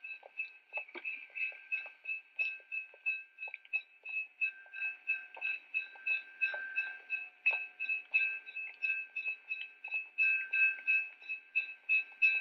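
Railroad crossing bell ringing steadily, about three strikes a second, heard on an old film soundtrack.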